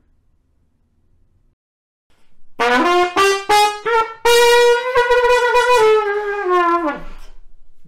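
Trumpet playing a short phrase after about two seconds of near silence. It starts with a few quick separate notes climbing in pitch, holds one long note, then steps down and ends with a falling slide.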